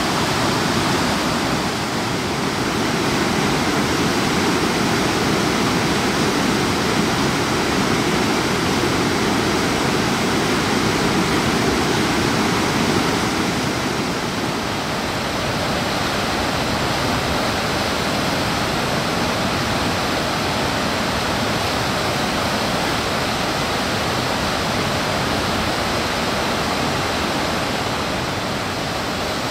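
Steady rush of a waterfall and whitewater cascading over granite slabs. The sound drops slightly and changes character about halfway through.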